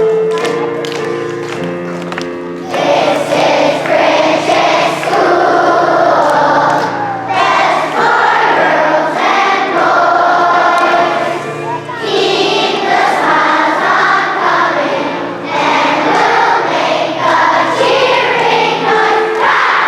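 A large group of children singing the school song together. They come in about three seconds in over held musical notes.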